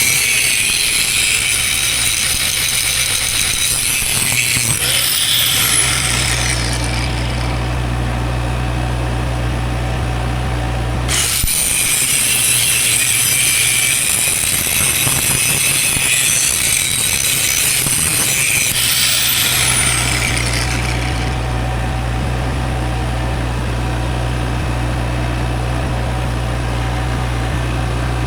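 Angle grinder working steel in two runs, each ending with the motor winding down in a falling whine; the second run starts about eleven seconds in with a rising whine as the disc spins up. Between runs and after, a steady low engine hum.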